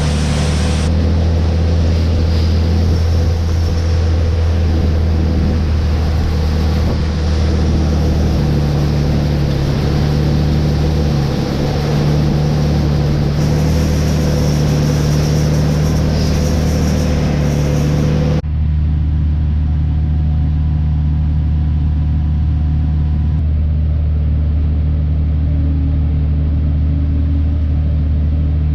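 Diesel engine of heavy harvest machinery running steadily at working speed, with a deep, even hum. About two-thirds of the way through, the higher rushing noise over it cuts off suddenly and only the low engine hum remains.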